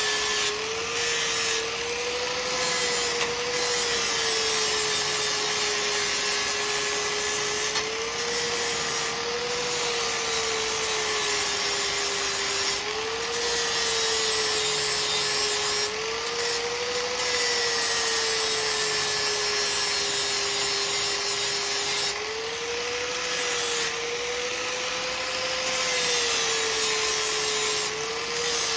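Handheld power grinder working metal: a steady motor whine that sags and recovers as it is pressed into the work, under a hissing grind that cuts out briefly now and then as the wheel lifts off.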